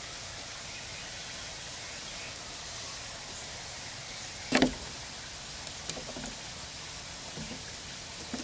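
One sharp knock about halfway through, then a few lighter clicks, as a hand handles sunflower seeds on a table. A steady hiss runs throughout.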